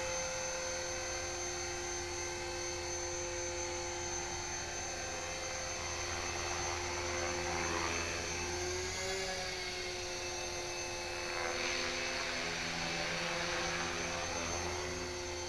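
HK-450GT electric RC helicopter in flight: a steady whine from the brushless motor and spinning rotors. The pitch wavers briefly about halfway through.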